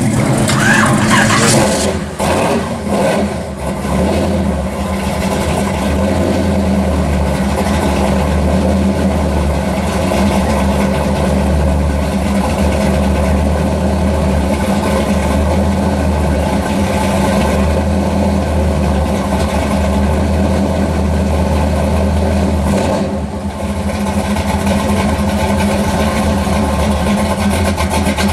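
Modified 1966 Chevrolet Chevy II Nova's engine idling steadily through its exhaust, with a short dip in level about 23 seconds in. The first two seconds instead carry a pickup truck's exhaust running.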